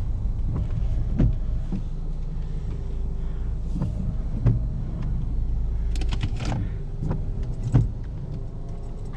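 Car running at low speed, heard from inside the cabin as it pulls in, a steady low rumble with a few faint knocks and clicks.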